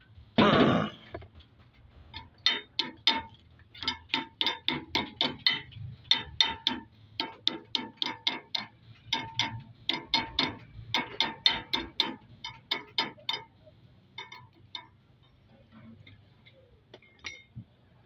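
Sharp metallic clicks with a short ring, in quick runs of about three or four a second, from hand tools working on the parts of a vintage VW engine under repair; a brief louder scrape right at the start, and only a few scattered ticks in the last few seconds.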